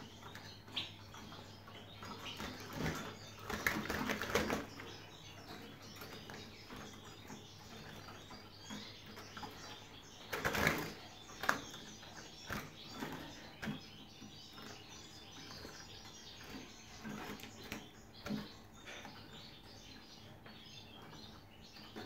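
European goldfinches fluttering and hopping in wire cages, wings flapping in short bursts, the strongest about three to four seconds in and again about ten seconds in.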